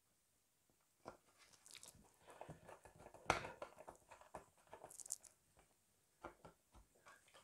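Faint clicks and scrapes of a small screwdriver driving a self-tapping (AB) screw into a model car part, the loudest click about three seconds in.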